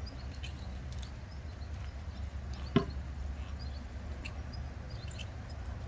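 A horse walking on an arena's sand, with faint hoof steps over a steady low rumble and one sharp knock a little before the middle.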